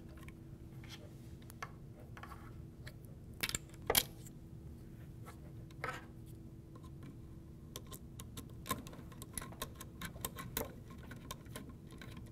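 Light clicks and taps of rear connecting studs, screws and a hex driver being handled and fitted on a plastic molded case circuit breaker, over a faint steady hum. Two sharper knocks come about three and a half and four seconds in, and a run of small ticks near the end.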